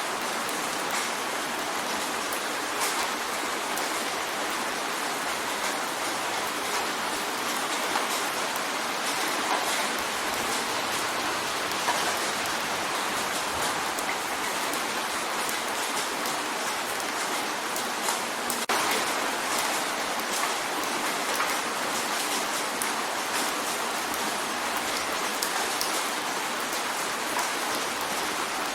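Steady rain drumming on a window: an even wash of rain with many small drop ticks scattered through it.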